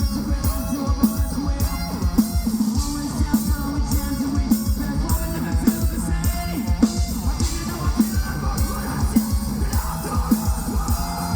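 Live nu-metal band playing: distorted electric guitars and bass over a steady, fast kick drum.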